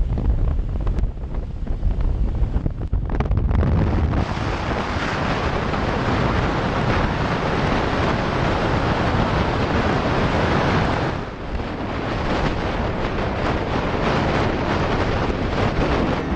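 Wind rushing over the microphone of a camera on a moving motorcycle at road speed: a loud, steady roar of buffeting that fills out about four seconds in and dips briefly about eleven seconds in.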